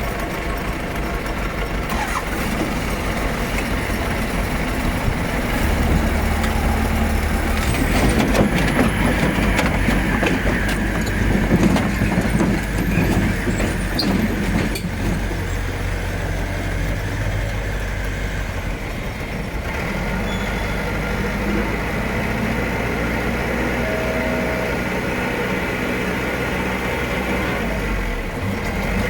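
Heavy diesel engine of a construction vehicle running steadily, with a louder stretch of rattling and clattering for several seconds around the middle.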